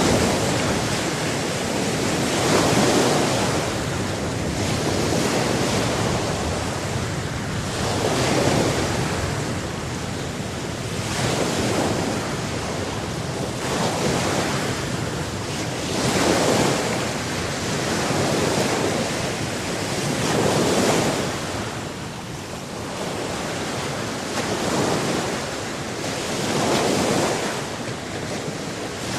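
Ocean waves breaking and washing on the shore, a continuous surf that swells and eases every few seconds.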